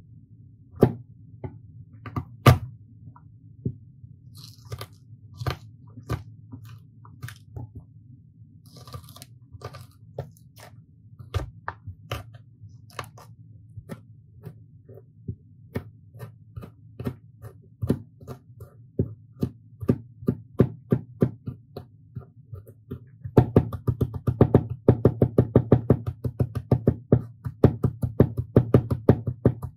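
Kitchen knife chopping garlic on a plastic cutting board: scattered, uneven strikes at first, then about three-quarters of the way in a fast, steady mincing of about four or five strikes a second. A low steady hum runs underneath.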